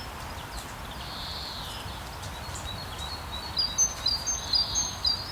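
Steady hiss of rain with songbirds calling over it; from about three and a half seconds in, a quick series of short, high chirps stands out above the rain.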